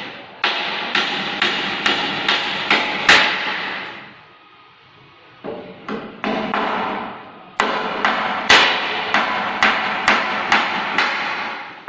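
Hammer blows on wood, about two a second, in two runs separated by a pause of about a second and a half.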